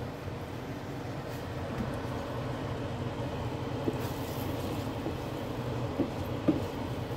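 A pan of thick sticky rice and coconut milk cooking over lowered heat gives a steady low rumble. A wooden spoon knocks lightly against the pan a few times, at about four seconds and twice around six seconds.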